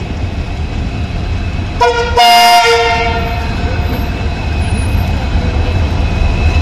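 Horn of an approaching WDG4 diesel locomotive: a short toot about two seconds in, then at once a loud chord-like blast that fades within about a second. Under it is a steady low rumble.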